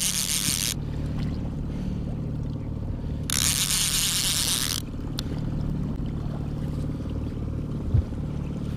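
Outboard motor running steadily at trolling speed. Over it come two loud bursts of rushing hiss, one in the first second and one about three to five seconds in, then a single thump near the end.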